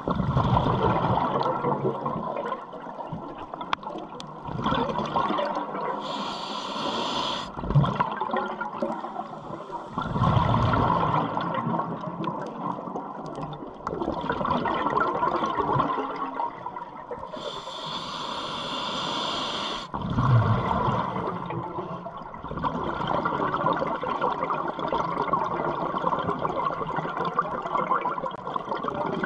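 A scuba diver breathing underwater through a regulator: bursts of exhaled bubbles rumbling every five seconds or so, and twice a high hiss of an inhalation through the regulator.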